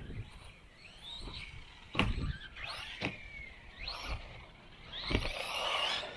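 LC Racing LC12B1 1/12-scale buggy's 5300 kV brushless motor whining up and falling away in pitch several times as the buggy speeds up and slows down. Two sharp thuds from the buggy hitting the track come about two seconds in and again about five seconds in.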